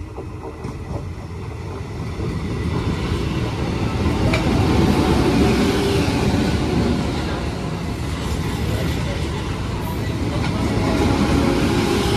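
Eastern Railway ICF-built EMU local train running past close by, its wheels rumbling and clattering on the rails with the odd sharp clank. It grows louder as the train arrives, is loudest about five seconds in, and swells again near the end as more coaches pass.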